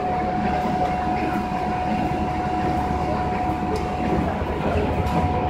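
Plastic shopping-bag cutting and heat-sealing machine running steadily: a dense mechanical rumble and rattle with a thin steady whine.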